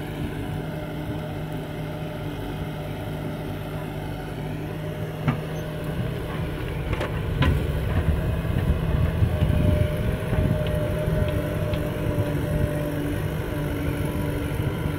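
Diesel engines of a JCB 3DX backhoe loader and a Mahindra 575 DI tractor running steadily, growing louder and rougher from about six seconds in, with a few short knocks.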